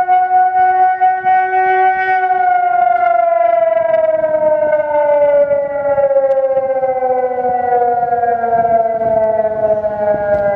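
San Francisco Outdoor Warning System siren sounding its weekly Tuesday noon test: one loud, sustained tone that holds steady for about two seconds, then slowly falls in pitch.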